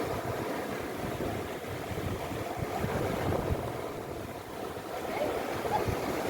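Sea waves washing steadily, with wind gusting on the microphone as a fluttering low rumble.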